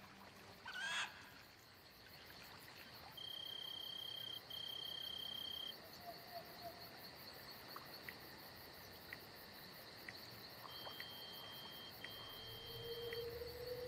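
Faint crickets trilling steadily at a high pitch. Twice, a pair of clearer, longer notes of about a second each stands out.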